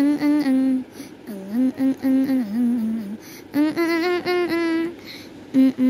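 A single voice singing a simple wordless tune in held notes, in short phrases with brief pauses between them.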